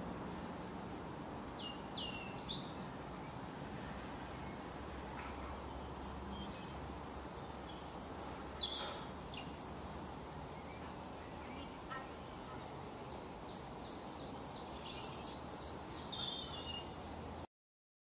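Small songbirds chirping and calling at intervals over a steady outdoor background rumble, busiest near the end; the sound cuts off suddenly just before the end.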